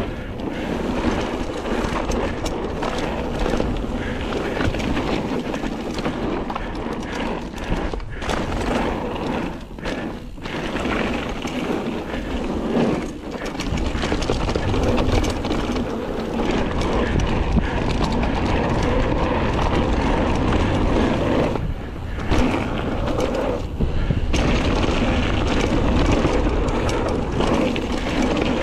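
Mountain bike riding fast down a gravel trail: wind rushing over the microphone and tyres crunching on gravel, with a stream of small clicks and knocks as the bike clatters over bumps. The level dips briefly a few times, around the turns.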